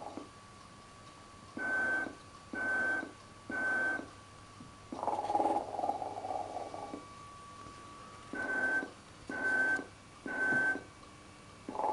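Snoring Santa Claus toy: a rasping snore alternating with sets of three short, even whistling puffs. Three puffs, a long snore about five seconds in, three more puffs, and another snore starting near the end.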